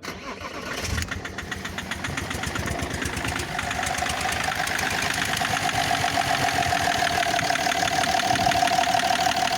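BMW M57D30 straight-six diesel cranks briefly, catches about a second in and settles into idle with a rhythmic knock, which the owner puts down to a faulty injector. A steady whine grows in from about four seconds.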